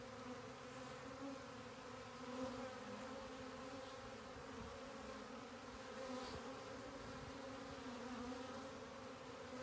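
Honey bee swarm buzzing: a steady, continuous hum of many bees in flight around the swarm cluster.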